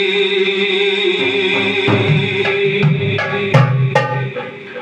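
A male singer holds one long note through a microphone. From about a second in, a hand-played frame drum (daf) joins with about two strokes a second. Both fade near the end.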